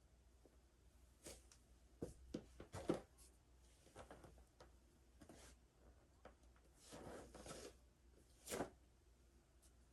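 Quiet, scattered soft knocks and clothing rustles from a person doing full prostration bows on the floor, with a longer rustle about seven seconds in.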